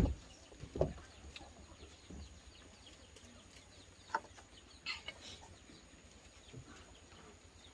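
A few scattered, faint chicken clucks and short bird chirps over quiet room tone.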